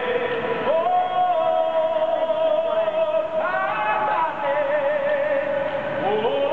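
Gondolier singing a boat song, sliding up into one long held note about a second in and sustaining it for around five seconds, with a wavering vibrato toward the end.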